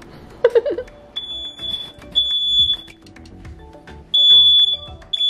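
Ceiling smoke alarm going off with loud high-pitched beeps in groups of three separated by a short pause, starting about a second in. It has been set off by smoke from poblano chiles roasting over the stove flame.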